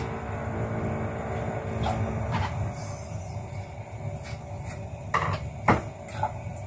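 Kitchen utensils handled on a counter: a scatter of sharp clicks and clatters, loudest about five to six seconds in, as kitchen scissors are picked up and set down on a cutting board. Under them runs a steady low hum, whose pitched tone stops about two and a half seconds in.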